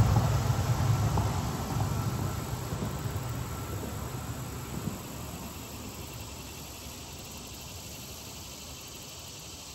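Low engine noise of a passing vehicle fading away over about five seconds, leaving a faint steady chirring of insects.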